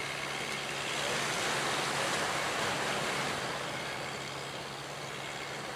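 Sea surf: waves breaking and washing toward the shore, a rushing noise that swells about a second in and eases off near the end, with a faint steady low hum underneath.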